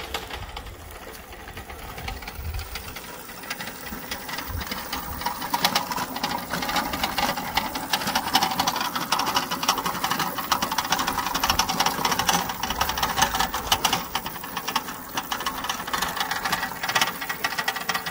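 Electric go-kart driven by a car alternator converted into a motor, whirring as it runs, with the kart rattling and crunching over a gravel track; it gets louder about five seconds in as the kart comes closer.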